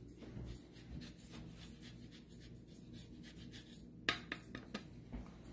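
A block of Pecorino Romano drawn over a handheld rasp grater: faint, repeated scraping strokes, with a few sharper clicks about four seconds in.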